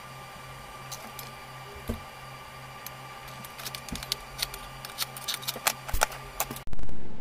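Steady hum and hiss of a small gas soldering torch, with light metallic clicks and taps from tools handling the brass model that grow busier in the second half. A sudden loud noise near the end fades over about a second.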